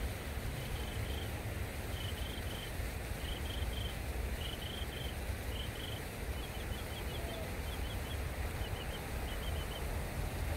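A bird calling over and over in short high chirps, mostly in quick groups of two or three, which come faster and thinner after about six seconds. Under it runs a steady low rumble.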